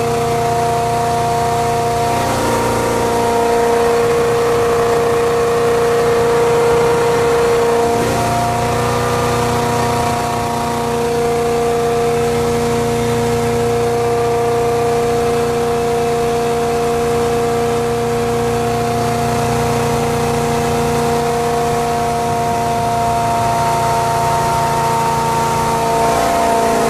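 The rebuilt engine of a 1973 Caravelle cuddy-cabin fishing boat running steadily under way at about 2,500 rpm while warming up, its pitch shifting slightly a few times.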